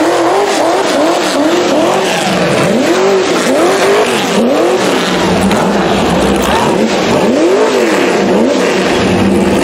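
Rock bouncer buggy's engine revving hard and repeatedly as it climbs rocks, the pitch rising and falling in quick throttle blips about one to two times a second.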